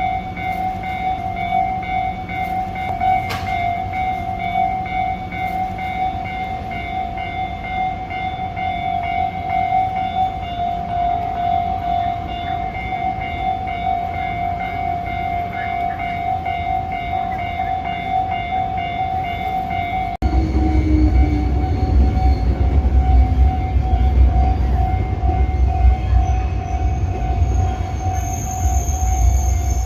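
Japanese level-crossing alarm bell ringing in a steady, evenly repeating electronic ding. About two-thirds of the way through, a train passes over the crossing and adds a heavy low rumble of wheels on rails under the bell, which keeps ringing.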